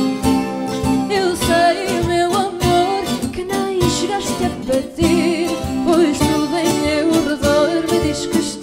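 Fado sung by a woman's voice with vibrato, coming in about a second in, over Portuguese guitar, classical guitar and Cuban tres, with percussion keeping a steady beat.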